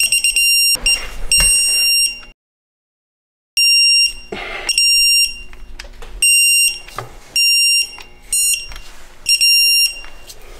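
Electronic torque wrench beeping as the ARP rod-bearing cap bolts are torqued to spec: short high beeps about once a second, the beep that signals the set torque is reached, with clicks from the wrench between them. The sound breaks off briefly a couple of seconds in.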